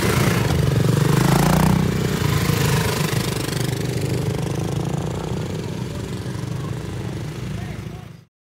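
Several 2022 BSA Gold Star 650 motorcycles with single-cylinder engines running as the riders pull away and ride off. The sound is loudest in the first two seconds, settles to a steady engine note, then cuts off suddenly near the end.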